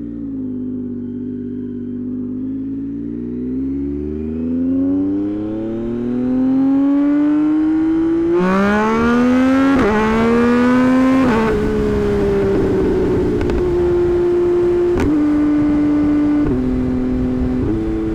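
2024 Yamaha MT-09's tuned three-cylinder engine pulling hard, its pitch rising steadily for about eight seconds. A quick run of gear changes follows between about 8 and 12 seconds in, then the engine holds a fairly steady speed with a few small gear steps and a sharp crack about 15 seconds in.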